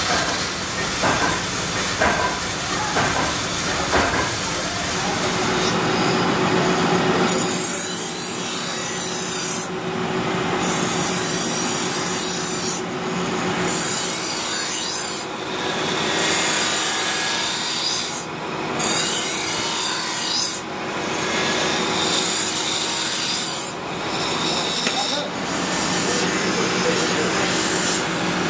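A motor-driven belt grinder hums steadily while a steel knife blade is pressed against the abrasive belt. From about seven seconds in there is a harsh grinding hiss in repeated passes, broken by short pauses. A few sharp clicks come in the first few seconds.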